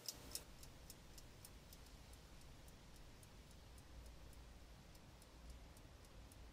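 Faint, regular ticking, about three to four ticks a second, like a clock, over a low steady hum; the ticks grow fainter after the first half-second.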